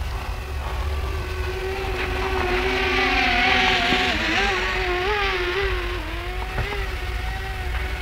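Potensic Atom SE quadcopter's propellers whining in flight nearby, swelling to its loudest about three to four seconds in and then easing off, the pitch wavering as it manoeuvres.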